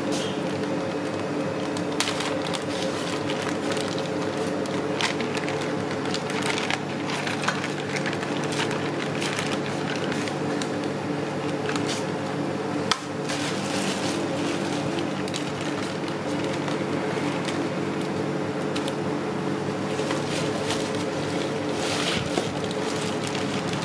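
A steady mechanical hum, like a motor or fan running, under a hiss, with scattered clicks and clatters and one sharp knock about 13 seconds in.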